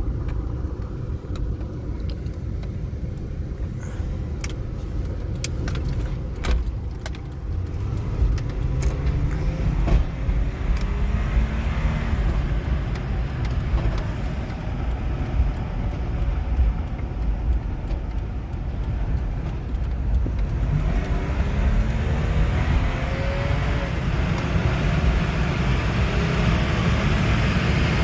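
A 2004 Chevrolet Trailblazer driving, heard from inside the cabin: a steady engine drone and road noise, with the engine pitch rising twice as it accelerates, and louder tyre and road noise near the end. A few light clicks come in the first several seconds.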